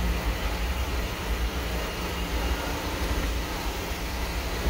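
Passenger train running, a steady low rumble with a noisy rush over it.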